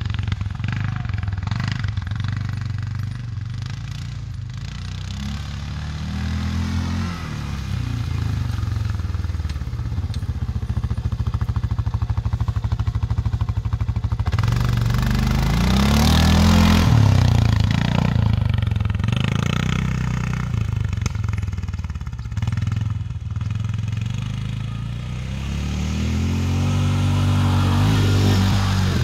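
Utility quad bike (ATV) engine running, revving up and falling back in several surges as it drives over grass. Near the middle it runs steadily at low revs, then rises again about halfway through and once more near the end.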